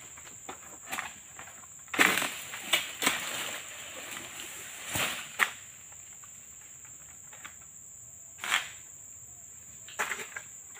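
Oil palm fronds being hacked and torn with a long-poled harvesting sickle (egrek): a series of separate sharp snaps and rustling swishes of stiff palm leaves, a handful of bursts a few seconds apart. A faint steady high tone runs underneath.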